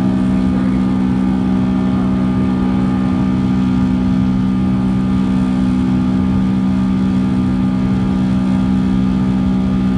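Boeing 757-200's Pratt & Whitney PW2000-series turbofans running steadily in the climb after takeoff, heard inside the cabin by the wing: a constant loud drone with a low steady hum and rushing airflow.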